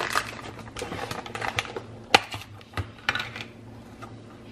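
Quick plastic clicks and taps as the lid of a plastic sour cream tub is handled and pried off, with one sharp snap about two seconds in and another just before three seconds.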